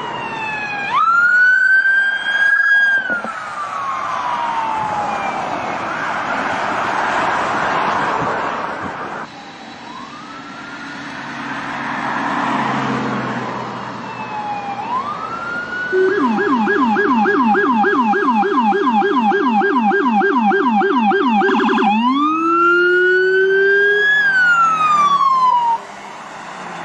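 Police car siren: a slow rising-and-falling wail, changing about two-thirds of the way in to a fast yelp of about five sweeps a second, then back to the wail, which cuts off sharply just before the end.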